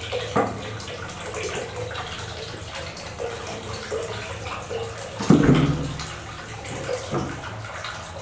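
Water pouring in a steady stream from an aluminium kettle into a plastic basin of water, splashing on the surface. A brief louder thud about five seconds in.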